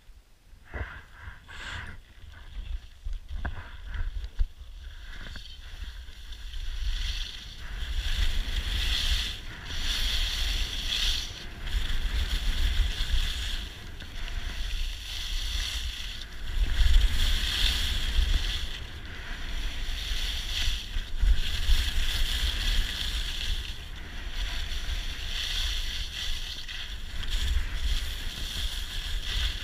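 Skis hissing and scraping over packed snow as a skier runs down a piste, swelling and easing with each turn, with wind rumbling on the microphone. The first few seconds hold a few short separate scrapes as the skier sets off, before the sound becomes continuous.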